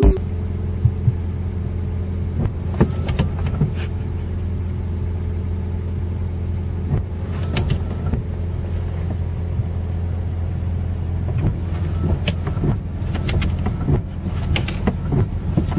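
Steady low hum of a car idling, heard from inside the cabin, with scattered light clicks. From about 12 seconds in the windshield wipers sweep across the wet glass, and the clicks and knocks come more often.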